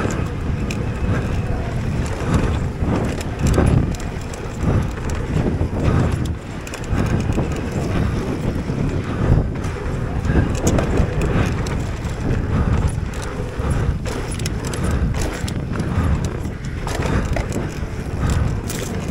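Mountain bike (a Giant Reign) being ridden fast down a dirt trail: a constant low rumble of wind on the microphone and tyres on dirt, with the frame and drivetrain rattling and clattering over the bumps.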